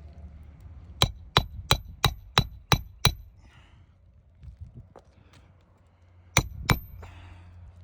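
Hammer driving nails into roof shingles: seven quick strikes at about three a second, then two more near the end, each with a short metallic ring.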